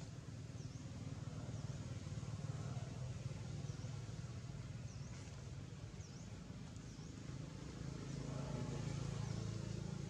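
Outdoor ambience: a steady low rumble that swells a little near the end, with faint high chirps repeating roughly once a second.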